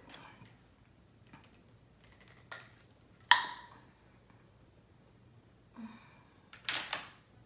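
A small glass baby-food jar and a plastic spoon being handled: a few light clicks and clinks, the loudest a sharp ringing clink just after three seconds in.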